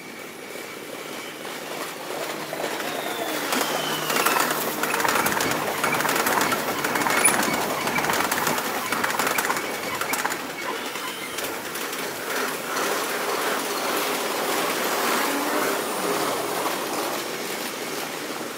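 A red-and-white Kintetsu electric train passing on the near tracks, heard sped up five times. A rush of wheel and running noise full of rapid clicks swells over the first few seconds, peaks, then slowly fades.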